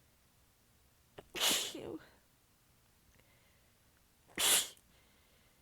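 A woman sneezing twice in a sneezing fit: once about a second and a half in, and again about three seconds later, each sneeze short and sharp.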